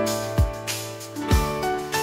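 Background music: sustained instrument notes over two bass-drum hits.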